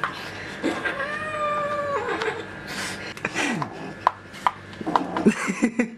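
Cat yowling while play-fighting with a hand: one long, level yowl about a second in, then shorter falling cries. Sharp clicks and scuffs come in the second half.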